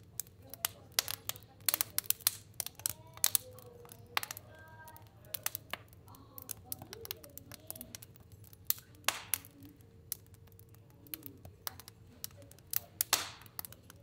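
Fire burning in a stove, crackling with frequent irregular sharp pops over a steady low rumble.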